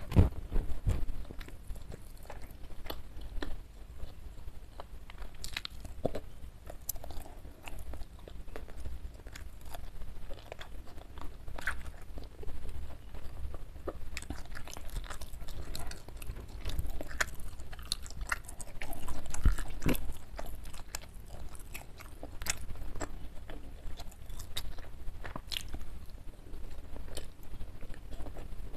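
Close-miked chewing of a mouthful of food, with irregular sharp mouth clicks and crunches throughout.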